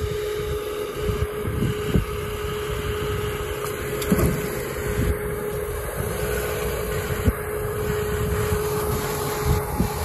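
Lada Niva 4x4 engine running as the car creeps into a shallow stream, with a steady whine over a low rumble and a few short knocks, and water sloshing around the front wheels near the end.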